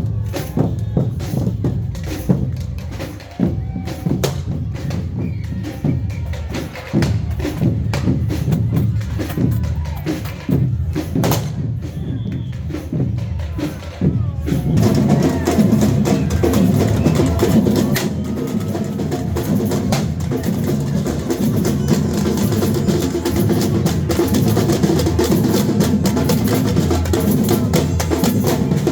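Marching procession band drums with sharp irregular bangs in the first half. About halfway through, a band with drums and sustained pitched notes starts up louder and keeps playing to the end.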